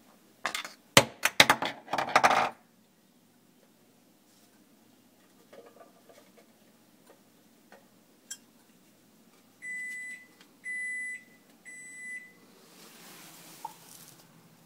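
Clicking and clattering of a garbage disposal's metal mounting ring and housing being handled and fitted, loudest in the first two seconds. Past the middle come three electronic beeps, each about half a second long and evenly spaced.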